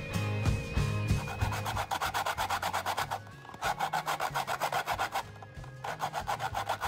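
Frozen bread rubbed quickly back and forth over a grater, grating it into fresh breadcrumbs. It is a fast rasping scrape of several strokes a second, starting a second or two in and broken by two short pauses.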